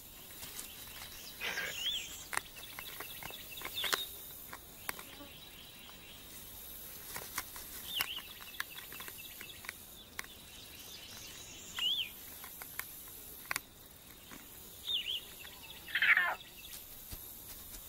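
Outdoor ambience: a bird repeats a short, high chirp every few seconds over a faint, steady high insect hiss, with scattered sharp clicks. Near the end, a longer call slides down in pitch.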